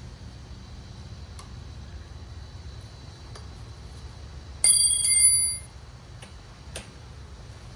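Struck metal ringing out with a clear bell-like tone, hit twice in quick succession about four and a half seconds in and dying away within about a second. Faint light clicks of hand-tool work come before and after.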